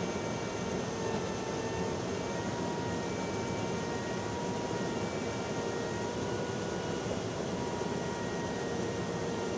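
Steady drone of jet engines and rushing air heard from inside a KC-10 Extender tanker's boom operator station, with a few faint, steady whining tones over it.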